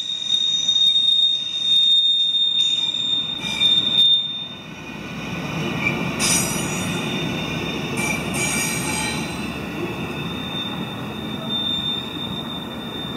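Freight train's double-stack well cars rolling past with their wheels squealing against the rail, a high steady squeal loudest in the first few seconds. Two brief, sharper squeals come about six and eight seconds in, over a low rolling rumble of the last cars on the track.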